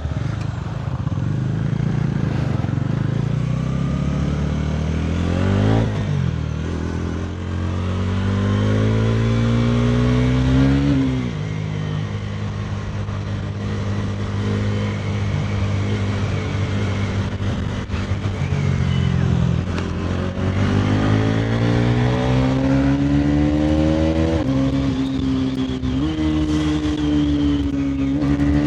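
Bajaj Pulsar NS400Z single-cylinder engine under hard acceleration, its note climbing through the revs and dropping sharply at each upshift, about five shifts in all, with a steady cruising stretch in the middle.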